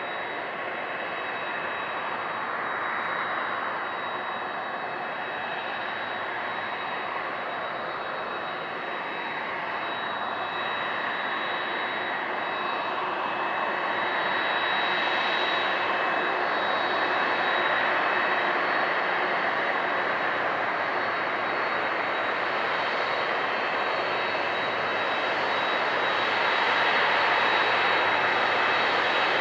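Boeing 767-300's twin GE CF6-80C2 turbofan engines running at taxi power as the airliner taxis past. A steady jet rush with a high fan whine grows gradually louder as the aircraft draws nearer.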